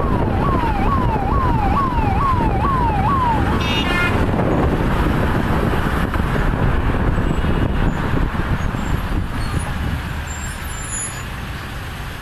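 Police vehicle siren in a fast yelp, about two sweeps a second, each a quick rise and slower fall, stopping about three and a half seconds in. A short horn toot follows. Vehicle engine and traffic noise runs underneath.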